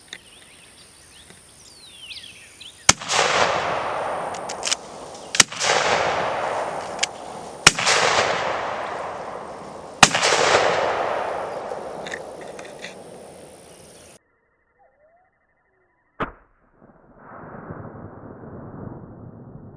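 Four shotgun blasts fired with turkey loads, about two and a half seconds apart, each followed by a long echo rolling away through the woods.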